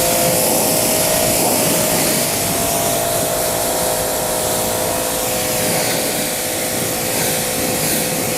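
Pressure washer spraying water to rinse cleaner off a tire and wheel: a steady hiss of spray over a steady whine from the washer's motor and pump.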